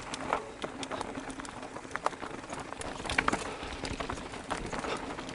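Mountain bike riding down a chunky, rocky trail of loose shale: tyres crunching over the rock, with irregular clicks and knocks as the bike rattles over the bumps.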